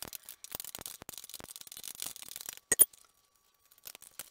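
Hex key turning out a cap screw in metal, a fast run of small metal ticks and scrapes, then two sharp clinks close together nearly three seconds in.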